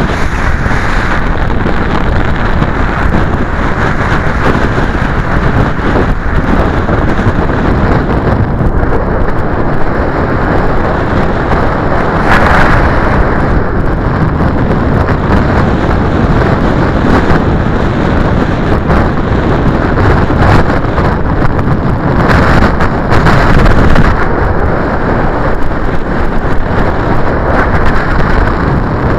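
Strong wind buffeting the microphone: a loud, steady rumbling rush that swells with gusts twice, near the middle and again about three quarters through.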